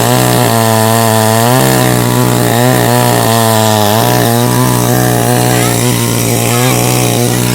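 Chainsaw running and cutting through a tree, its engine pitch sagging and recovering several times under the load of the cut.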